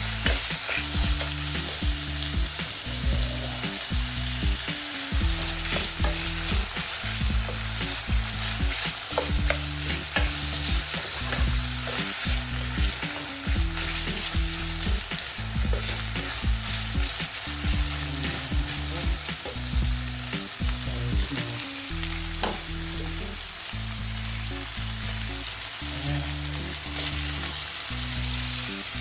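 Chicken pieces frying in hot oil in a pan: a steady sizzle with occasional stirring, the meat browned before the vegetables go in. Low tones that shift pitch in steps, like a bass line, run underneath.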